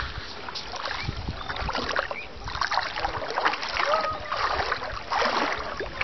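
Shallow sea water lapping and splashing at the water's edge, in uneven swells about every second.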